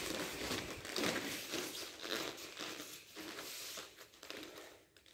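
Soft, uneven rustling of cotton karate uniforms and bare feet shuffling on foam mats as the two practitioners move and reset.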